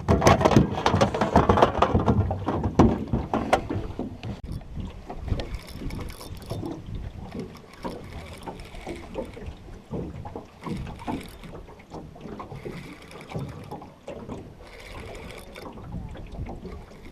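Irregular knocks, clatter and rustling of fish and gear being handled in a small fishing boat, loudest in the first few seconds, then quieter and scattered.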